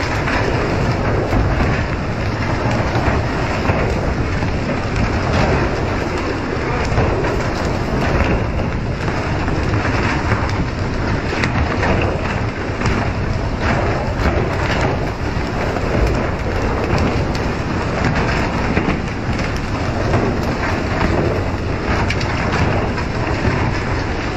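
Steady, rain-like hiss of water jetting from a pole-and-line fishing boat's hull sprinklers and pattering onto the sea, over a low rumble from the moving boat. Scattered short knocks and splashes stand out here and there.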